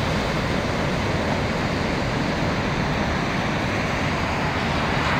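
Rough sea surf breaking and washing steadily onto a sand beach, the sea still churned up after a night storm.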